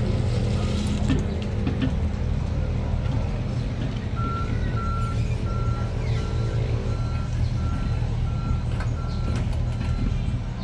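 Road-rail excavator's diesel engine running steadily; about four seconds in, its travel alarm starts beeping, about two beeps a second, as the machine moves along the track.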